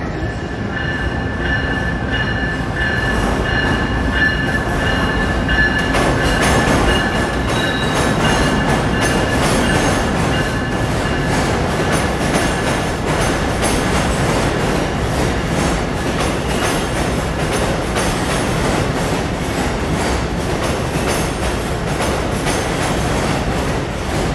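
Passenger train moving along a station track: a steady rumble with high, steady wheel squeal for the first ten seconds or so, then fading. Repeated clicks of wheels over rail joints come in from about six seconds on.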